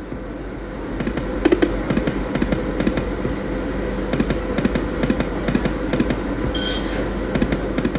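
Dragon Train poker machine spinning its reels: a fast run of electronic ticks over a steady hum, with one brief bright burst about two-thirds of the way through.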